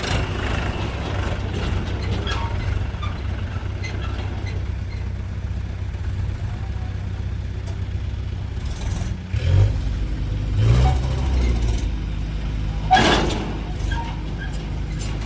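Heavy diesel engine running steadily, revving up briefly twice, about nine and a half and eleven seconds in, with a short loud burst of noise about thirteen seconds in.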